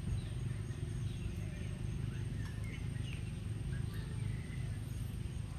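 Outdoor ambience: a steady low rumble with short high chirps scattered through it, over a thin, steady high-pitched whine.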